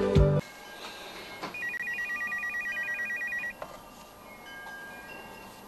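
Phone ringing with an electronic warbling ring: two high tones alternating rapidly, about ten a second, for about two seconds.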